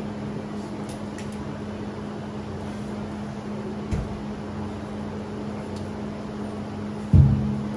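Steady low hum of a fan or air-handling unit, with two dull low thuds: a small one about four seconds in and a louder one near the end.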